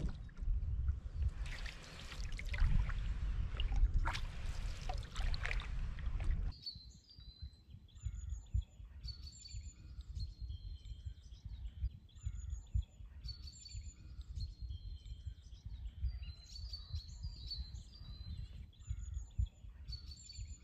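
Splashing and rushing water as a canoe is paddled, in surges, for the first six seconds or so; then an abrupt cut to songbirds singing short, repeated high phrases over a low rumble.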